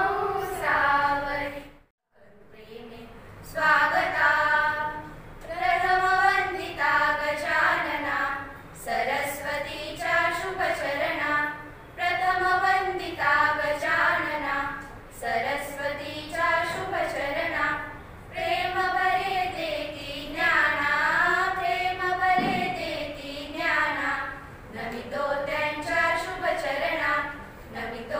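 A small group of schoolgirls singing together in unison, unaccompanied, in long held phrases. The singing breaks off briefly about two seconds in, then carries on.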